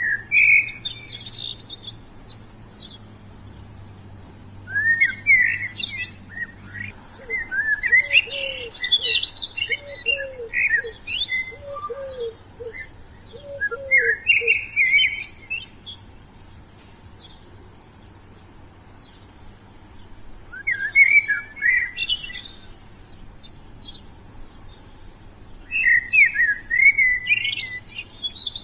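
Wild songbirds singing in bouts of quick, twittering chirps separated by quieter pauses, with a slower series of short, lower notes repeated in the middle of the longest bout.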